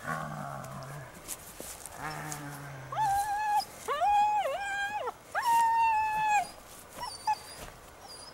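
German Shepherd puppy whining while tugging at a rag: three long, high-pitched whines in the middle, the second dipping in pitch twice, then a few short yips. Two lower, steady sounds of about a second each come first.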